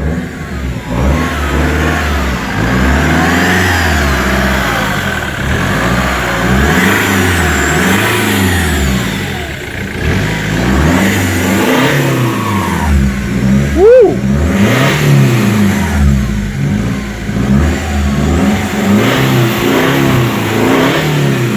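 Ford Mondeo ST TDCi's 2.2-litre four-cylinder diesel engine running and being revved up and down over and over, with one sharp, loudest blip about two-thirds of the way through. The engine is running for the first time after a clutch change.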